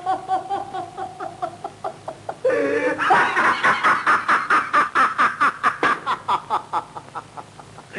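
A man laughing in a film soundtrack: a drawn-out laugh at first, then from about three seconds in a loud, fast, rhythmic 'ha-ha-ha' that trails off near the end.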